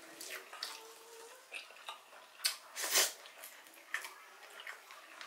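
Close-up eating sounds of a man eating grilled food with his hands: chewing and lip smacking, with two louder wet smacks about two and a half and three seconds in.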